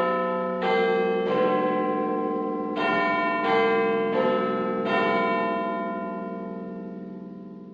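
A chime of tuned bells strikes a phrase of four notes, pauses for about a second and a half, then strikes a second phrase of four notes. The last note rings on and slowly fades away.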